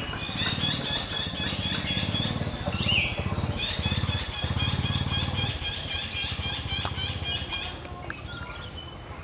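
A low, engine-like running hum pulsing rapidly and steadily, with a fast repeating high chirping over it that stops about three-quarters of the way through.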